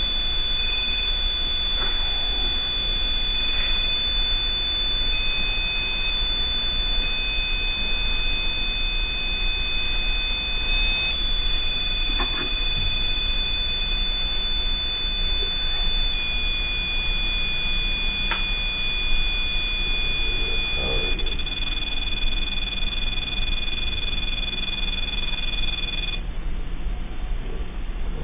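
REM pod proximity alarm sounding as two steady high electronic tones that step in pitch a few times before cutting off near the end. The investigators take it as triggered by a presence near its antenna.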